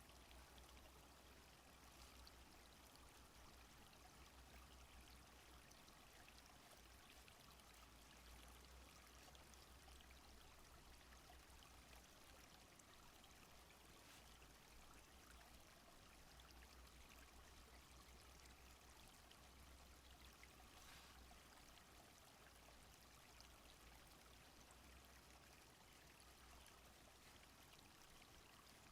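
Faint, steady sound of a small stream flowing, with water running and trickling without a break.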